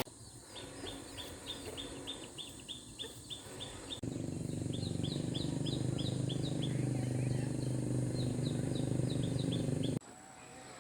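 A bird chirping over and over in short, quick, falling chirps, about four a second. From about four seconds in, a steady low rumble runs underneath, and both cut off abruptly near the end.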